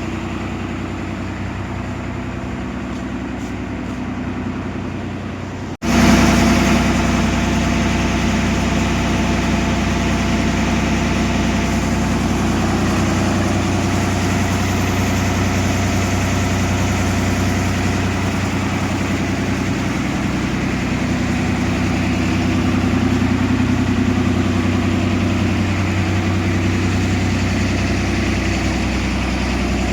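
The ventilation fans of an environment-controlled poultry house running, a steady mechanical hum. About six seconds in it drops out for an instant and comes back a little louder.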